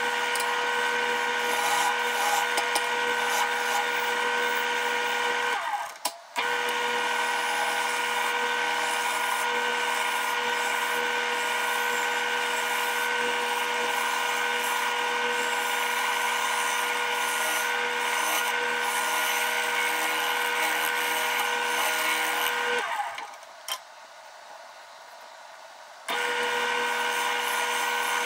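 Wood lathe running with a steady whine while a hand-held gouge cuts the face of a spinning heart-shaped cherry blank, a rough, ragged cutting noise over the motor. The sound drops away briefly about six seconds in and again for a few seconds near the end before resuming.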